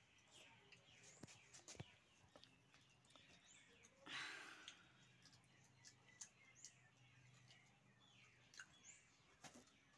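Near silence with faint bird chirps in the background and a few small clicks. A short hiss-like rush of noise about four seconds in is the loudest sound.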